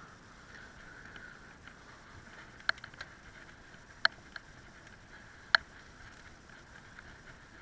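Bicycle rolling along a paved path, with steady tyre and wind noise. Three sharp clicks stand out, about a second and a half apart.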